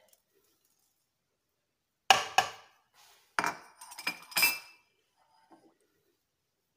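Several sharp clinks and knocks of kitchen dishes and utensils being handled, about five in all, bunched between about two and five seconds in.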